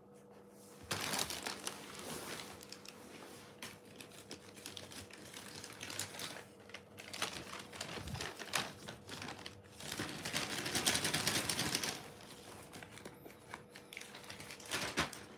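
Plastic bag crinkling and rustling as it is handled, in uneven crackling spells, densest about ten seconds in and easing off about two seconds later.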